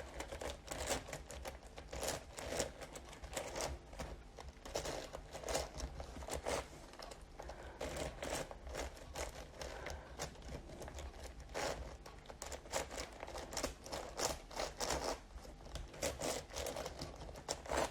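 A 15×15 Rubik's cube being turned by hand: its plastic pieces click and scrape in quick, irregular runs as the layers are rotated.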